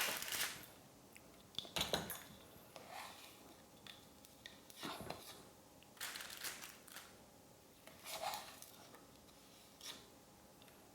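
Faint, scattered clinks and scrapes of a utensil against a mixing bowl as cookie dough is scooped out and rolled into balls.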